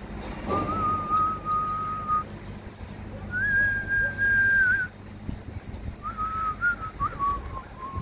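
A person whistling a slow tune: a long held note, a longer higher note, then a run of short wavering notes that falls in pitch near the end.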